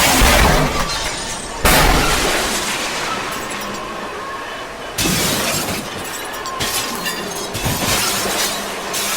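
Loud crashing, rushing destruction noise. It cuts in abruptly about one and a half seconds in and again at about five seconds, and fades slowly each time.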